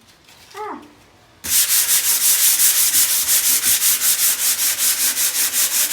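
Sandpaper rubbed hard over a wall in quick, even back-and-forth strokes, several a second, starting about a second and a half in.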